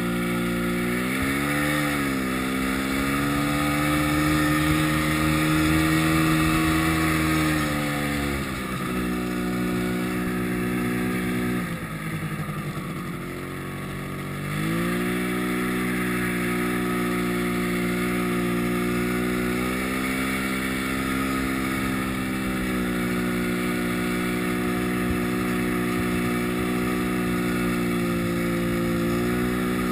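Yamaha snowmobile engine running under way, its pitch climbing and falling with the throttle. Around the middle the throttle is eased off for a couple of seconds and the engine drops, then it picks up again and holds a steady note.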